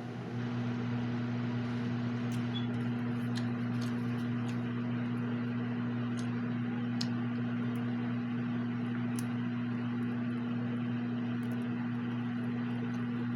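A household appliance running with a steady electrical hum and fan-like noise, switched on just before, with a few faint ticks over it.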